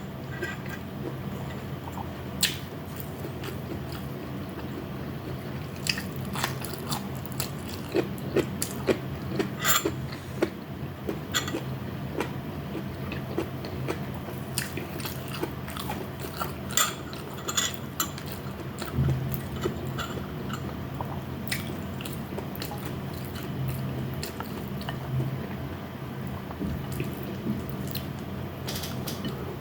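Close-up sounds of a person eating a meal of fried pork chop and vegetables: biting and chewing, with many sharp clicks and smacks coming in clusters. A steady low hum runs underneath.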